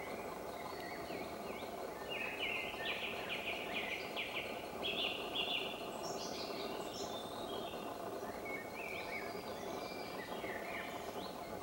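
Several songbirds singing, with a quick run of repeated notes in the middle and some high notes falling in pitch, over a steady background noise.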